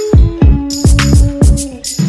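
Hip hop background music: a steady beat of deep bass kicks, about two and a half a second, with sharp hi-hat-like ticks and held synth notes above.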